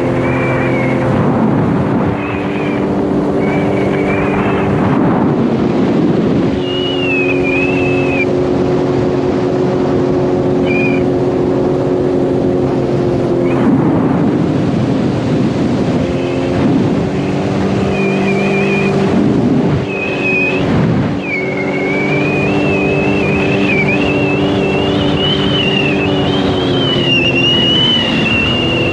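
Sea-Doo GTR 230 personal watercraft, a brand-new supercharged Rotax three-cylinder, running under way at a steady cruising speed. The engine note dips and comes back up several times as the throttle is eased and reopened. A high wavering whine and the rush of water and wind run over it.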